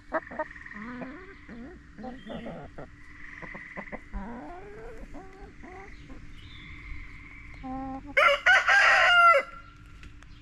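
Backyard hens clucking: many short calls that bend up and down in pitch. About eight seconds in comes one much louder, drawn-out chicken call lasting just over a second.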